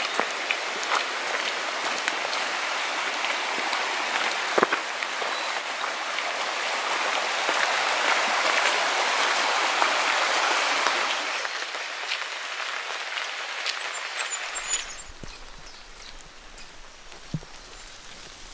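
Steady rain falling, a dense hiss with scattered drops ticking, heaviest in the middle. About fifteen seconds in it cuts off abruptly to a much quieter hiss with a faint low rumble.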